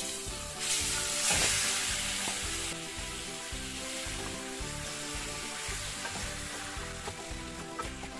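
Marinated mutton pieces dropping into hot coconut oil in a pan: a loud sizzle that flares about half a second in, then settles to a steady sizzle as the meat is stirred with a wooden spatula.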